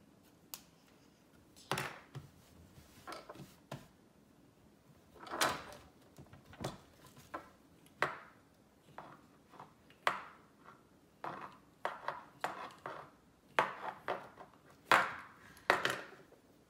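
Plastic Play-Doh toy tools and dough being handled on a wooden tabletop: irregular clicks, taps and knocks, the loudest near the end.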